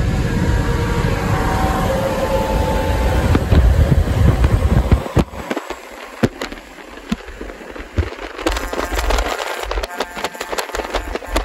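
Hadley air horn on a White GMC WIA64T semi truck sounding as a chord of steady tones over heavy road and wind noise at highway speed. About five seconds in the rushing drops away, leaving scattered crackling clicks.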